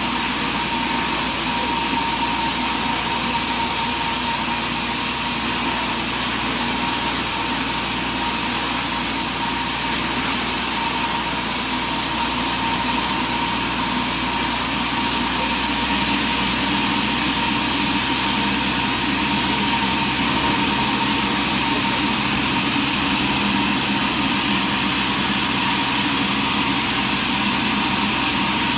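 Sawmill running steadily, its engine and saw giving a constant mechanical drone with a steady whine; the sound shifts slightly about halfway through.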